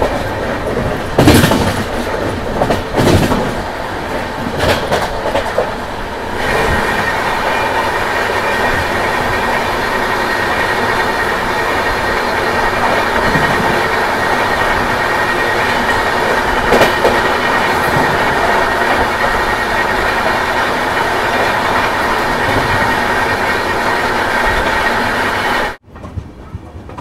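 Ranthambhore SF Express running at speed, heard from an open coach door: wheels clicking over rail joints, with wind noise. About six seconds in, a steady, loud rush with a faint hum takes over as an express train on the next track passes close alongside. Near the end the sound drops off suddenly to quieter running.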